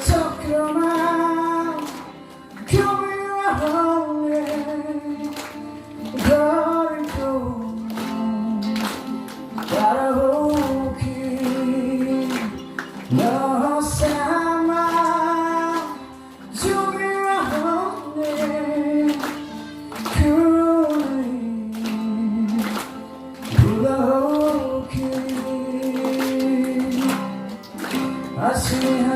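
A song: a sung melody, likely a woman's voice, in phrases of long held notes over instrumental backing with a steady beat.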